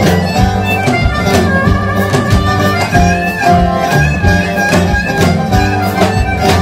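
Live blues band playing: harmonica leading with bending, wailing notes over guitar, double bass and drums with regular cymbal strokes.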